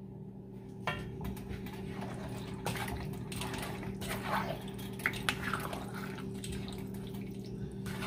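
A spoon stirring duck pieces through thick, wet curry sauce and freshly added marinade in a metal pan: soft wet sloshing with occasional light scrapes and taps against the pan. A steady low hum runs underneath.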